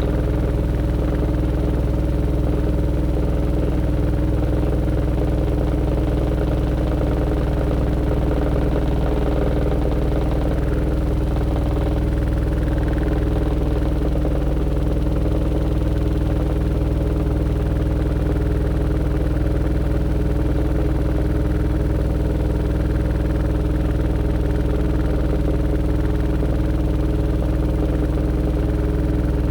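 Aqua AQW-DX12M front-loading drum washing machine in its spin cycle, set to 1200 rpm, the drum spinning steadily at high speed with an even mechanical hum of several steady tones. The sound is picked up through the machine's top panel, with the phone resting on it.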